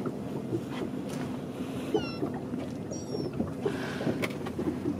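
Gulls give short high cries, about two seconds in and again a second later, over the steady low rumble of a boat's engine and water.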